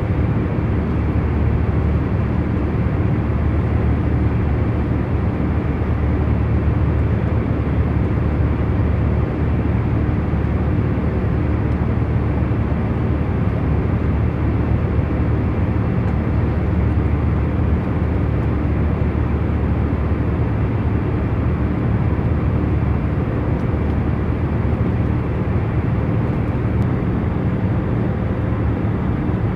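Airliner cabin noise in cruise: a steady low hum and rush of engines and airflow, with a few faint steady tones under it and no changes.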